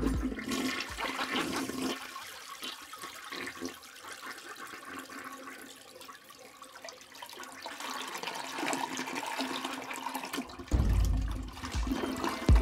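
Wall-mounted urinal flushing through its chrome flush valve, a rushing, hissing water sound that eases off midway and builds again. A deep low rumble comes in about eleven seconds in.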